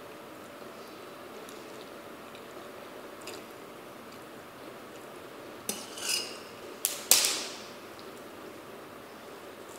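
A metal fork clinking and clattering against a stainless steel bowl: a few sharp strikes in just over a second past the middle, one with a short metallic ring. The loudest strike has a brief decaying tail.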